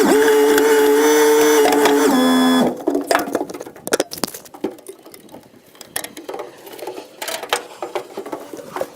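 An excavator's hydraulics whine steadily for a couple of seconds, shifting pitch in steps, then stop. This is followed by irregular cracking, snapping and knocking as a tree stump and its roots are dug out.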